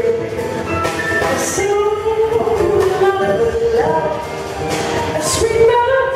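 Woman singing a jazz tune into a microphone, holding notes and sliding between pitches, with a small jazz combo of piano, double bass and drums accompanying her.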